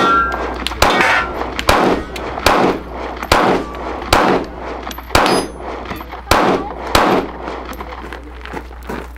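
Glock 25 pistol in .380 ACP fired in a steady string of about nine sharp shots, a little under a second apart, during a competition stage.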